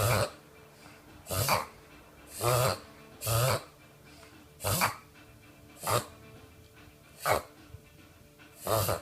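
Bichon Frise reverse sneezing: a run of eight short, harsh snorts drawn in through the nose, about one every second or so. This is a common episode in dogs that often worries owners.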